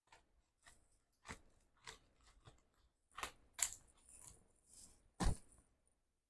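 Irregular snips, crinkles and clicks of a shipping package being cut and worked open, with a brief rustle partway through and a louder knock about five seconds in.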